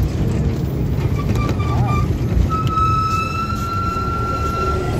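Vehicle horn: a few short beeps, then one long steady note from about halfway through, over a steady low rumble of vehicle noise.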